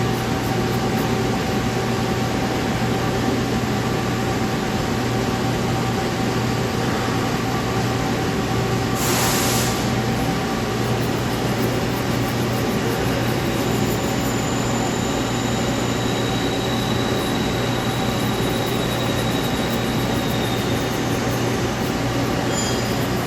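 Machinery running steadily: a constant hum and a steady whine, with a brief hiss about nine seconds in.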